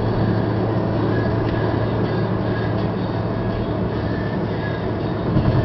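Steady drone inside a moving car's cabin: engine hum and tyre and road noise while cruising at highway speed.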